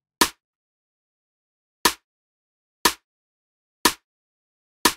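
Layered drum-and-bass snare drum samples, two stacked one-shots, played back from a DAW: five sharp hits with short tails and dead silence between, one near the start, then four about a second apart. The two layers are being checked for phase alignment and sound pretty passable, close to in phase.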